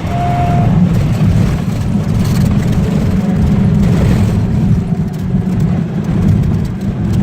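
Cessna 206's six-cylinder piston engine and propeller running steadily with a heavy low rumble, with a short steady high tone during the first second.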